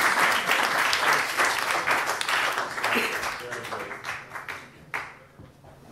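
Audience applauding at the end of a stand-up set. The clapping thins out and fades over about four seconds, with one last clap near the end.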